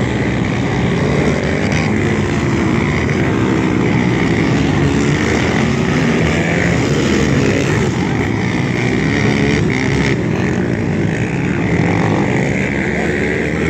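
Several racing ATV engines revving together, pitch rising and falling as the quads go on and off the throttle around the track.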